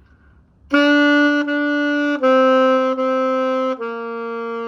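Saxophone playing long, steady notes that step down in pitch twice, each note tongued into two, starting about a second in.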